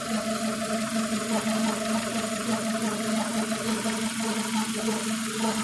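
Renault K4M 1.6-litre 16-valve four-cylinder engine idling warm: a steady hum with a grinding, squeaking, rustling noise from the engine.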